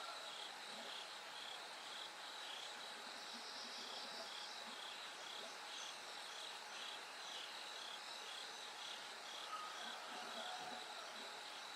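Bell crickets and other autumn insects chirping, faint and steady: a high chirp repeating about twice a second over a steady high trill.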